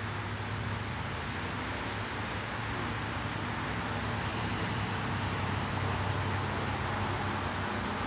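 Steady low hum and rushing noise of road traffic, swelling slightly past the middle, with a few faint, brief high chirps from small birds.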